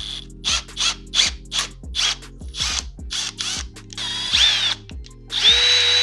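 Milwaukee cordless drill drilling out a broken brake-lever pivot bolt in an aluminium master cylinder perch. It runs in about a dozen quick trigger pulses, then two longer runs near the end whose motor pitch dips and climbs again. Background music plays underneath.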